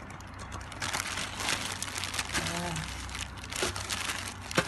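Clear plastic bag crinkling and rustling while grated coconut is shaken out of it into a pot.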